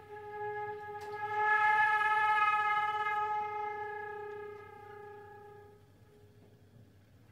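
A flute holds one long note. It is accented sharply about a second in, swells, then fades away by about six seconds.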